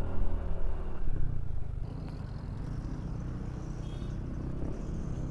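Yamaha NMAX 155 scooter running under way, with steady engine and road noise. It is louder for the first two seconds, then settles to an even cruise.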